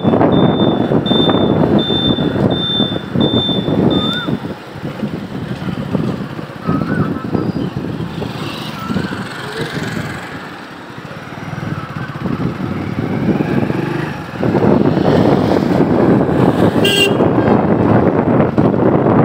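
Motorcycle riding on a rough road: engine and road noise under heavy wind rush on the microphone. For the first four seconds a high beep repeats about two and a half times a second. The noise drops for several seconds in the middle and rises again about fourteen seconds in, with a brief sharp high sound shortly after.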